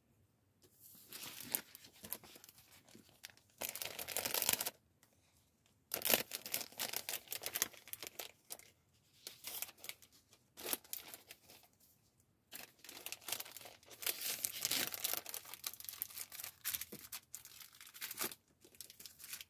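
Paper and plastic crinkling and rustling in irregular bursts, with short pauses between them: sheets and packets of stickers being handled and sorted through.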